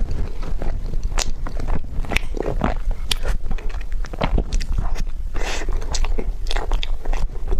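Close-miked chewing of a tiger skin roll, a soft sponge cake roll filled with pork floss: many quick, irregular mouth clicks.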